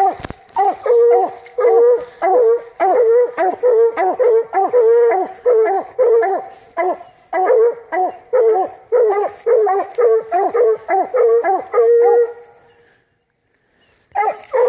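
Coonhound barking loudly in a fast, steady run of short barks, about two or three a second. It stops about twelve and a half seconds in and starts again just before the end.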